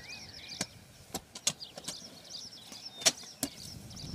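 Hand hoes chopping into garden soil as several men till by hand: irregular sharp strikes, about seven in four seconds. Small birds chirp in the background.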